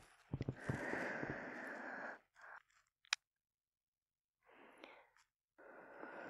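A woman breathing close to a binaural dummy-head microphone: a long breathy exhale about half a second in, a single sharp mouth click about three seconds in, then two softer breaths near the end.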